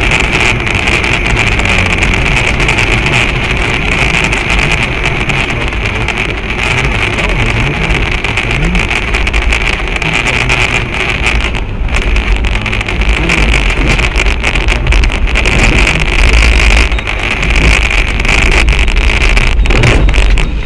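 Loud, steady vehicle noise: a deep rumble under a constant hiss, the sound of a motor vehicle on the move.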